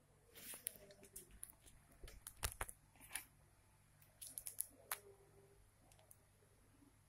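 Faint handling noise: scattered soft clicks and rustles, the loudest about two and a half seconds in and a quick cluster around four to five seconds, over a low steady hum.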